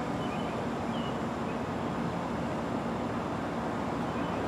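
Steady rumble of distant road traffic, with a couple of faint bird chirps in the first second.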